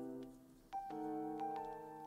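Soft background music of sustained piano-like chords, with a new chord coming in about three quarters of a second in.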